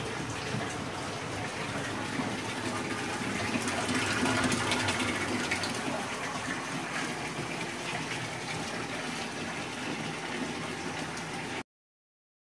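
Water steadily gushing and splashing through a pump-fed aquarium tank system, a little louder about halfway through, cutting off abruptly near the end.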